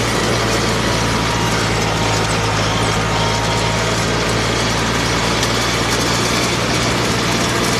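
Farm tractor engine running steadily under load while it pulls a New Idea 5209 disc mower-conditioner cutting hay, the mower's spinning drive adding a dense, even mechanical clatter over the engine's low hum.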